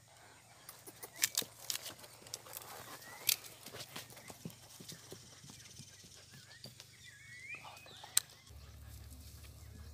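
Hoofbeats of a ridden mule on a dirt trail: scattered knocks, thickest in the first few seconds, with one sharp knock near the end.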